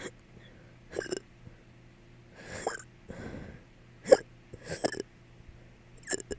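A person hiccupping over and over, short sharp hiccups roughly once a second, with breaths between them.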